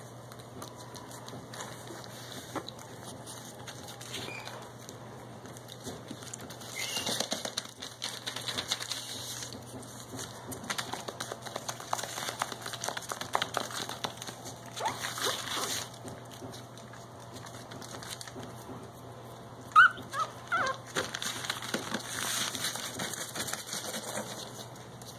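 Pekingese puppies shuffling about on spread newspaper, crinkling and rustling it in bursts, with a few short, high squeaks from a puppy about twenty seconds in.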